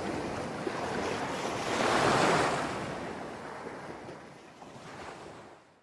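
Small sea waves breaking and washing up on a sandy beach, one swell of surf loudest about two seconds in, then the sound fades out near the end.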